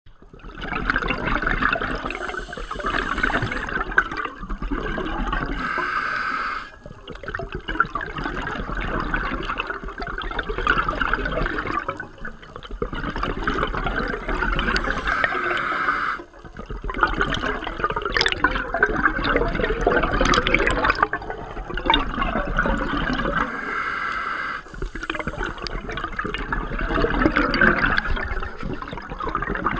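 Underwater bubbling and rushing water on an underwater camera, coming in long surges of several seconds with short breaks between them, like a scuba diver's exhaled regulator bubbles. Brief crackles come in the middle.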